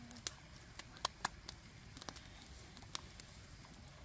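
Wood fire under a wok of fish crackling, with irregular sharp pops, the loudest about a second in, over a faint low rumble.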